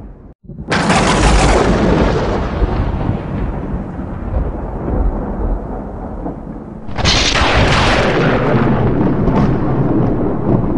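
Thunder: a sudden sharp crack just under a second in rolls into a long, deep rumble, and a second crack about seven seconds in rumbles on to the end.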